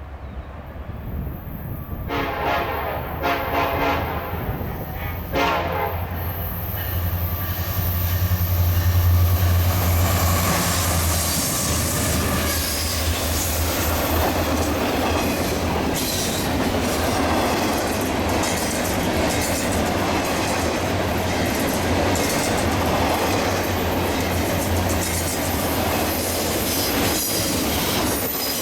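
A freight train led by diesel locomotives, an SD70M-2 and an ex-Conrail Dash 8, passing. The horn sounds a run of short blasts about two to six seconds in, then the locomotives' engines drone loudly as they go by, and the freight cars follow with a steady rumble and clickety-clack over the rail joints.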